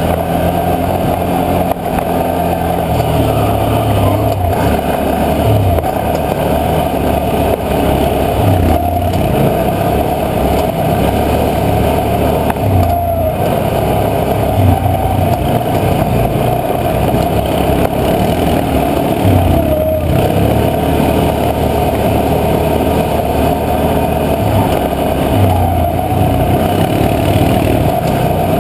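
A Can-Am 650 XMR ATV's V-twin engine runs without a break on a rough trail, its pitch rising and falling every few seconds as the throttle comes on and off.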